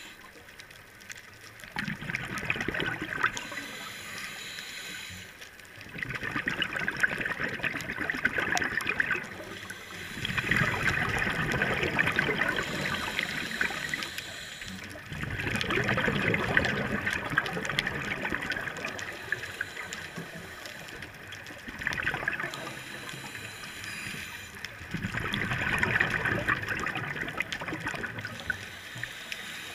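Scuba diver breathing through a regulator underwater: exhaled bubbles gurgle out in a burst with each breath, about six breaths in a steady rhythm, with quieter gaps between them.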